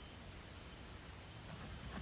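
Quiet forest night ambience heard from inside a tent: a steady faint hiss, with a faint rustle about one and a half seconds in.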